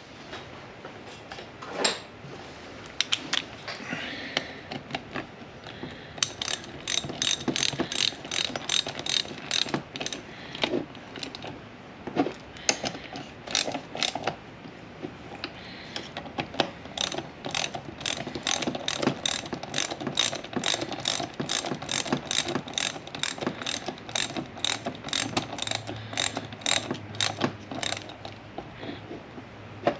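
Hand ratchet wrench clicking in runs of sharp clicks, about two to three a second, as the hold-down bolts of a manual transmission shift tower are run down. There are short pauses between runs.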